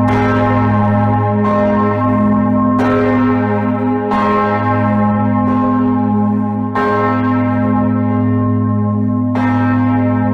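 The great A-flat church bell, cast by Eschmann, swinging full circle, its clapper striking about six times at uneven intervals. Its deep hum and ringing overtones carry on between strokes.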